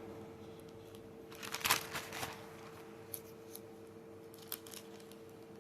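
Paper rustling as pages are leafed through, a burst of rustles about one and a half seconds in and a few small ticks after, over a faint steady hum.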